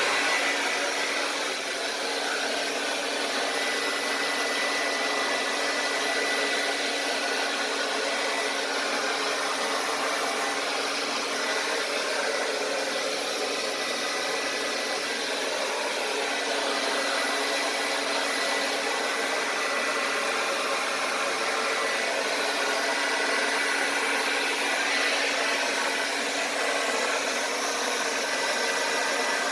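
Handheld blow dryer running steadily, blowing air to push poured acrylic paint across a canvas: an even rush of air with a faint high whine.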